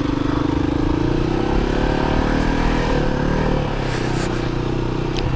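Kawasaki KLR250's single-cylinder four-stroke engine running under way, its revs rising and falling through the middle as the throttle changes, then settling to a steady note.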